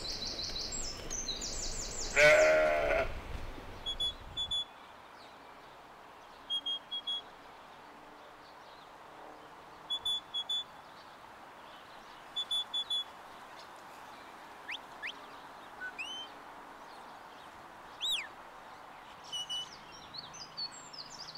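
A sheep bleats once, loudly, about two seconds in. It is followed by short high whistled notes in quick groups of three and a few rising-and-falling whistles, over a faint steady hiss.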